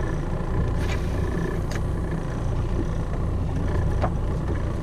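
Small fishing boat's engine running at idle, a steady low rumble, with a few faint clicks over it.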